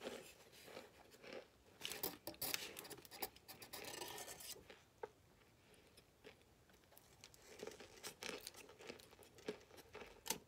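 Dry cornstarch chunks crunching as they are bitten and chewed, with crinkles from the aluminium foil they are picked from: a dense run of crackles about two to four seconds in, then scattered ones.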